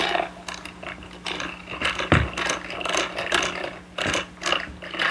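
Irregular clicking and rattling of the 3D-printed PLA hobby lathe's plastic mechanism as it is worked by hand.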